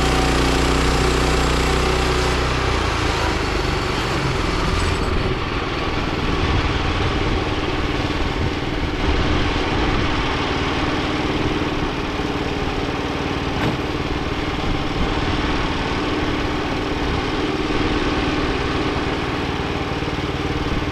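Wood-Mizer LX25 sawmill engine running steadily. About two seconds in, the even hum turns rougher and noisier.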